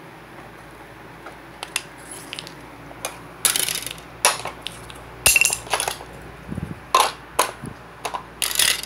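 Small plastic and wooden toy pieces knocking and clattering as a hand rummages through a plastic toy storage bin, a string of separate sharp clicks and clatters that begins about a second and a half in.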